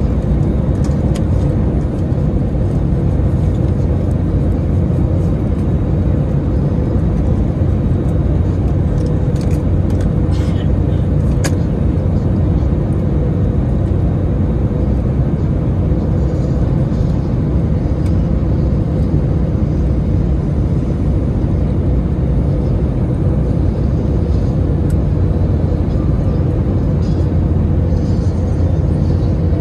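Steady cabin noise of an Airbus A321neo on approach, heard from a window seat over the wing: a low rumble of the Pratt & Whitney PW1100G geared-turbofan engine and airflow, with a steady mid-pitched hum running under it.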